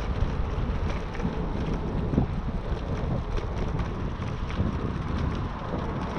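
Wind buffeting the microphone of a camera on a moving bicycle: a steady low rumbling rush, with road noise from the ride beneath it.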